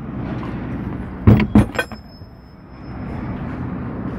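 A quick run of three or four sharp metallic knocks about a second and a half in, the last leaving a brief high ring, over a steady background rumble.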